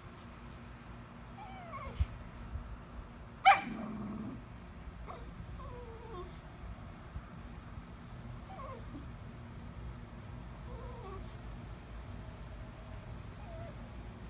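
Small dog whining in short, falling whimpers every few seconds, eager for a squirrel up in the tree, with one sharp, loud yip about three and a half seconds in. A single short knock sounds about two seconds in.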